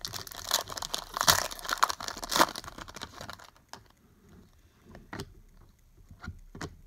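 Trading cards being handled and flipped through, with rustling and crinkling. There is a dense run of it for the first three and a half seconds, then scattered soft clicks and taps.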